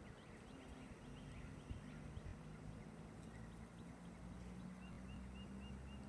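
Small birds chirping faintly over a low steady hum, with a run of five short, evenly spaced notes near the end.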